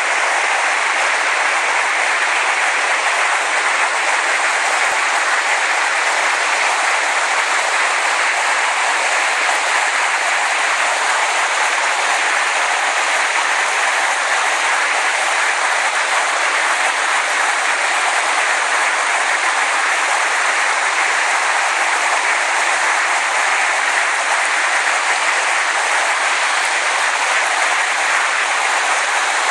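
Steady, unbroken rush of a river in flood, fast muddy water running at about 16,000 cubic feet per second past logjams.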